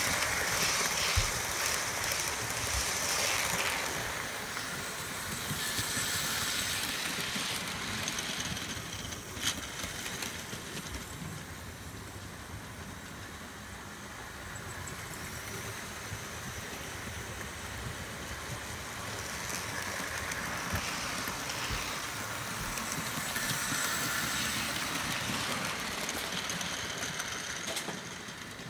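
Model railway train running on the track: the locomotive's small electric motor and its wheels rolling on the rails, swelling as it passes near the start and again later, then fading, with a few sharp clicks.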